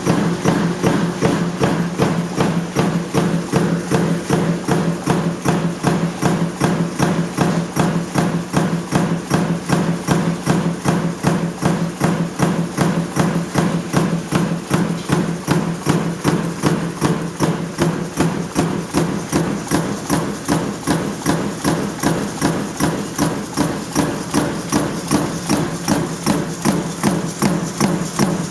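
Sheet-metal stamping press running continuously, knocking at a steady two to three strokes a second over a constant low hum.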